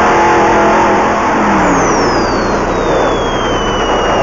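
Off-road race vehicle's engine and drivetrain heard from inside the cab over heavy road and dust noise, running steadily and then dropping in pitch as the driver backs off. A thin high whine falls steadily in pitch through the second half.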